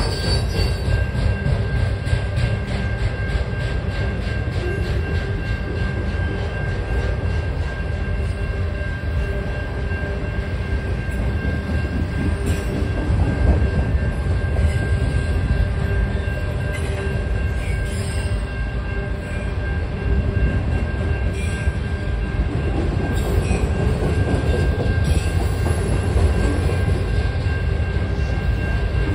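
A freight train of autorack cars rolls past a grade crossing with a steady low rumble of wheels on rail. Regular wheel clicks over rail joints come through in the first few seconds, and a steady high tone runs over the rumble.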